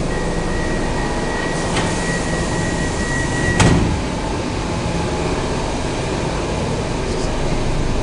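A steady high tone held for about three and a half seconds, ending with a sharp knock, over a steady background hum.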